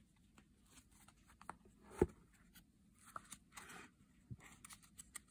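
Hands handling a deck of cards and a small paper guidebook: a soft knock about two seconds in, a few light clicks, then paper rustling as the booklet is opened and its pages turned.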